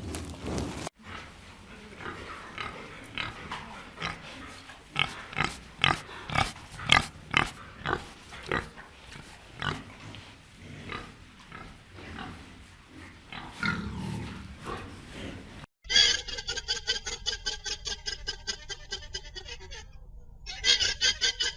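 Pigs grunting and squealing in a run of short, separate calls, several close together at times. About sixteen seconds in, a cut brings a different, fast and evenly pulsed animal call.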